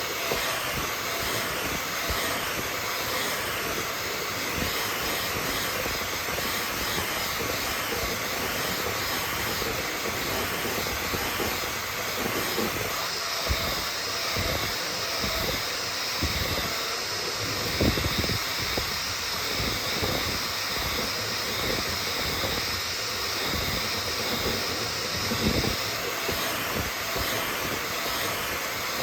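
3D printer running: a steady hiss with a high whine that wavers, then holds steady for a stretch about halfway through, and a few soft low knocks.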